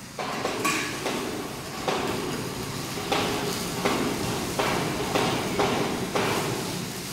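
Workshop overhead crane running with a steel beam hanging from it: a steady noise broken by irregular knocks about every half second to a second.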